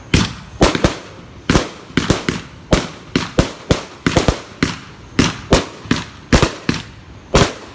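A 260-shot firework cake firing its shots in rapid, irregular succession, about three sharp bangs a second.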